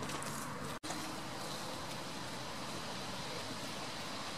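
Steady wind noise: an even hiss with no distinct events, broken by a brief dropout less than a second in.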